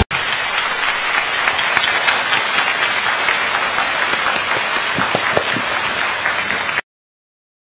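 Audience applauding, a dense, steady clatter of many hands clapping that cuts off abruptly about a second before the end.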